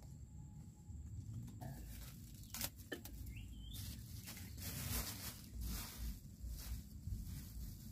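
Light rustling and scraping of kindling and firewood being handled, in scattered short strokes, with a faint steady high insect trill behind.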